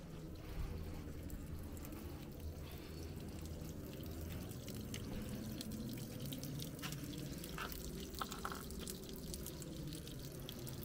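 Thin stream of water trickling and dripping from a stone wall fountain's spout, with a few sharper drips and splashes about two-thirds of the way in.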